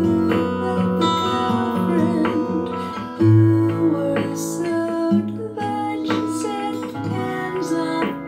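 Recorded music played through a pair of Tannoy Legacy Cheviot loudspeakers: a plucked-string piece with sustained bass notes, with a louder low note about three seconds in.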